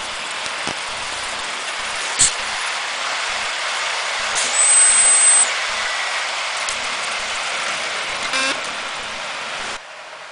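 Loud, steady hiss of steam from a Hornby live steam OO-gauge model of Mallard, with a sharp click about two seconds in and a thin high whistling tone in the middle. It cuts off suddenly near the end.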